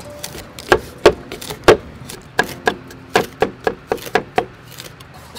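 Cleaver chopping green herb leaves on a round wooden chopping block. Three heavy strikes come in the first two seconds, then a quicker run of about eight lighter chops, roughly four a second.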